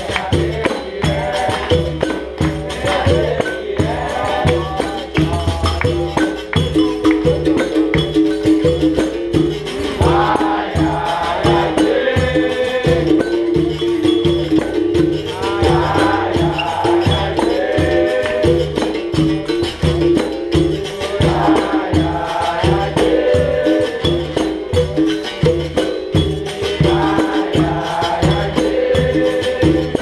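Capoeira Angola roda music: an atabaque drum and pandeiro keep a steady rhythm under a berimbau's repeated twang and the shake of its caxixi rattle, with a group singing over it.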